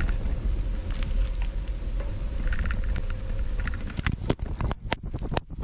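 Bike tyres rolling on a gravel trail with a low wind rumble on the GoPro Hero 9's microphone. About four seconds in, a fast run of knocks and clatters as the camera comes loose from its mount on the bike and falls.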